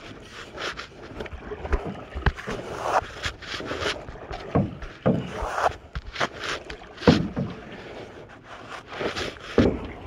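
Canoe paddle strokes: the paddle blade swishing through the water again and again, with a few short knocks and scrapes of wood against the wooden canoe.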